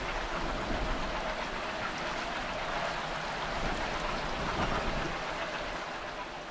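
Steady, rain-like rushing hiss of water spraying and splashing at the canal aqueduct, easing off slightly near the end.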